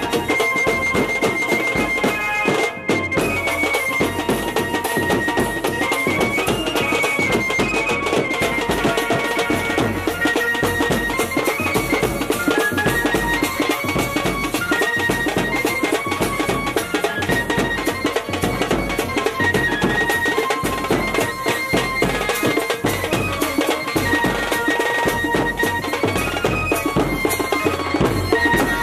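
Indian wedding brass band playing a reedy melody on its horns over a steady drum beat.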